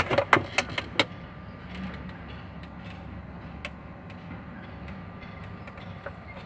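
Metal parts of an excavator's swing reduction gearbox clinking, four sharp knocks in the first second as they are handled, then only a steady low hum with a few faint ticks.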